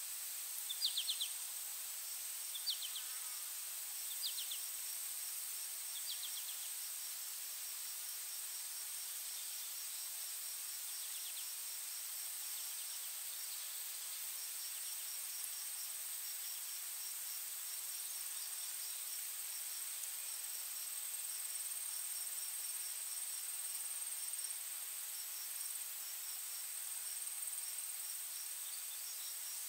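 Insects chirping and buzzing: a steady high-pitched drone with rapid cricket-like pulsing repeated throughout. A few short chirps sound in the first several seconds.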